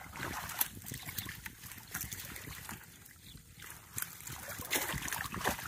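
Water trickling and splashing in irregular bursts as a collapsible mesh fish trap (China net) is lifted and dragged through shallow paddy-field water.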